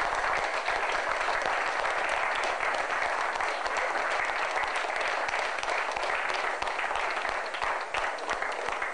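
Steady applause from a roomful of people clapping their hands.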